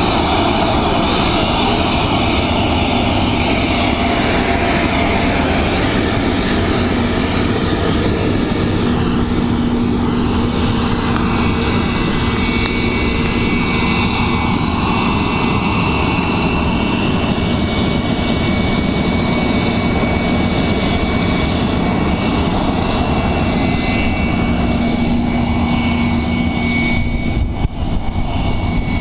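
Light airplane's engine and propeller running steadily, heard from inside the cabin.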